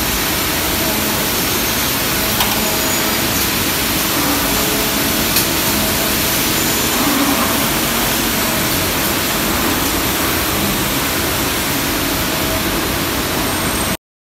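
Steady, loud hiss of a machining factory floor, with machinery running and a few faint clicks. It cuts off abruptly near the end.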